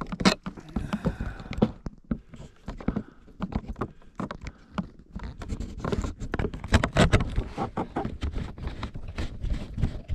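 Snowmobile riding along a trail in deep snow, with a dense run of irregular knocks and thumps from the machine.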